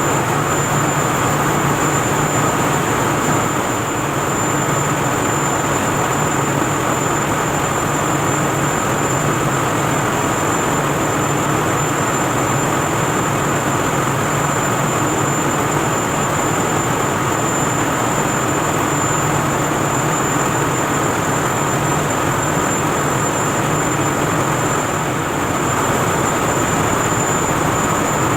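Steady, loud machinery roar of a boiler room, with a constant thin high-pitched whine over it; no alarm sounds.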